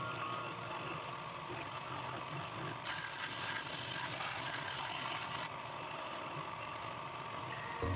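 Bench belt sander running steadily, with a brighter hiss from about three seconds in to about five and a half seconds as a wooden hammer handle is pressed against the abrasive belt and sanded.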